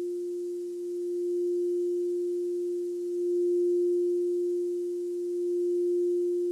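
Crystal singing bowl ringing one steady, pure sustained tone that swells gently louder and softer.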